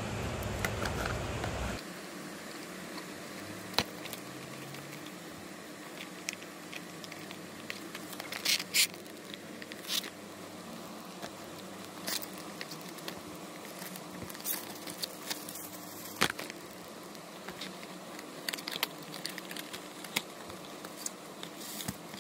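Scattered clicks, taps and rustles of a small cardboard box being opened and its crumpled tissue-paper wrapping handled. A low background hum drops out about two seconds in.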